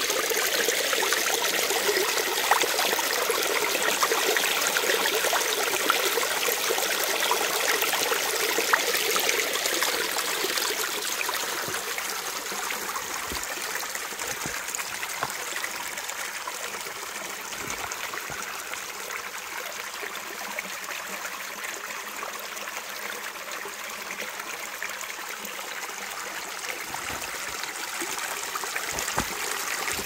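Shallow rocky stream babbling as water runs and splashes over stones: a steady rush that eases a little about a third of the way through and grows again near the end.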